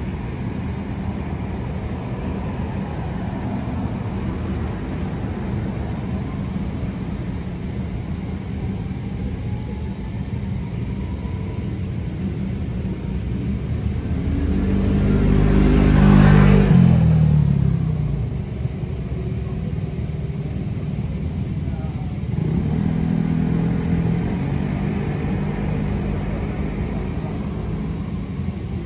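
Street traffic: a steady low rumble of motor vehicles, with one vehicle passing close about halfway through, its engine note rising in loudness and then dropping in pitch as it goes by, and another engine passing a few seconds later.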